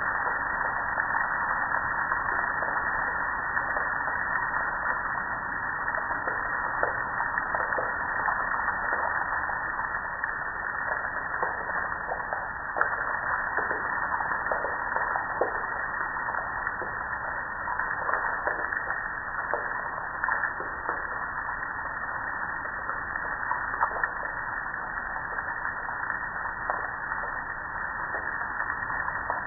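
Steady hiss of water splashing down over a soapy gas grill and onto the wet ground beneath, dotted with many small crackling drop impacts.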